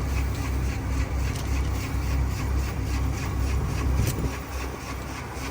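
Farm machine engine running steadily with an even, rhythmic low throb: a tractor or harvester idling while ropes are rigged to pull the stuck harvester free.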